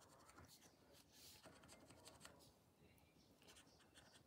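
Near silence, with faint, scattered scraping of a coin on a scratchcard's scratch-off panel.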